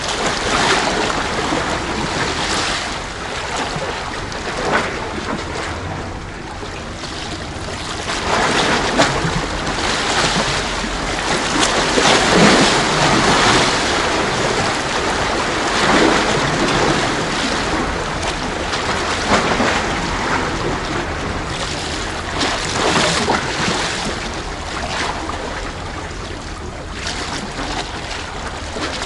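Sea water washing and sloshing among concrete tetrapod breakwater blocks, surging irregularly every few seconds, with wind rumbling on the microphone.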